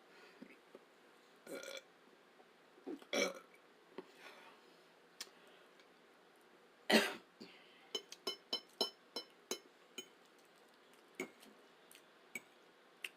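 A person burping during a meal: one loud, deep burp about seven seconds in, with smaller ones earlier, followed by a quick run of sharp clicks and smacks.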